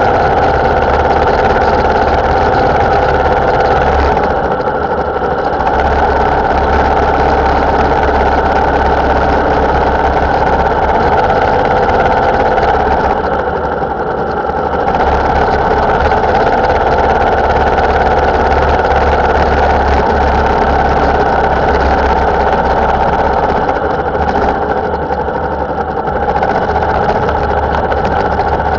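Motorcycle engine running steadily while riding, picked up by a bike-mounted dashcam, with road noise. The sound dips briefly three times.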